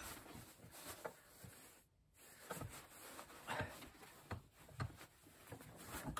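Light, scattered metallic knocks and clinks as a steel bench vise is worked by hand: the sliding handle bar is turned and a steel sleeve is set between the jaws.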